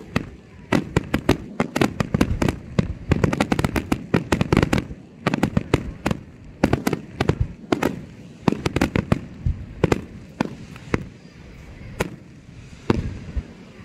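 Aerial fireworks shells bursting overhead in a rapid barrage of bangs and crackles. The barrage thins out about eleven seconds in, leaving a few single loud bangs near the end.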